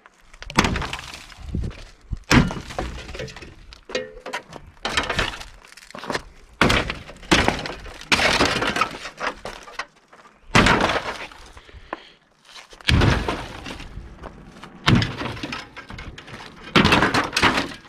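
Demolition debris and scrap aluminum clattering as pieces are pulled loose and tossed: about ten loud, sudden crashes, each trailing off in a rattle, with lighter clatter between.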